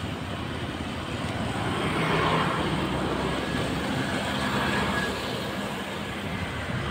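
Street traffic: motor scooters and motorbikes passing near and far on a town road, the engine noise swelling about two seconds in and easing off again.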